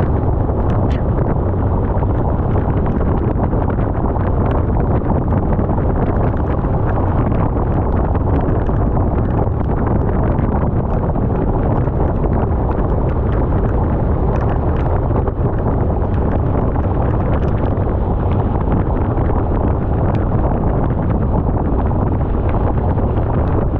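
Wind rushing steadily over the microphone of a Harley-Davidson motorcycle riding at road speed, with the engine running underneath and faint scattered ticks.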